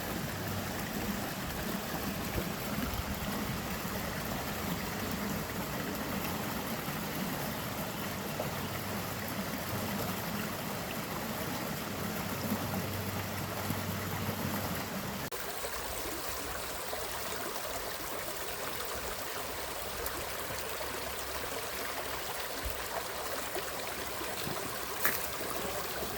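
Forest stream running water, a steady rushing trickle. A little over halfway through the sound changes abruptly and loses its low rumble, and near the end there is one short click.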